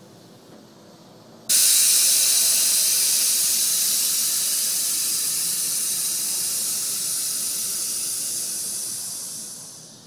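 Air rushing out of a mini truck's rear air-ride bags through electronic air valves as the rear suspension lets down: a loud hiss starts suddenly about a second and a half in and slowly fades over about eight seconds as the bags empty.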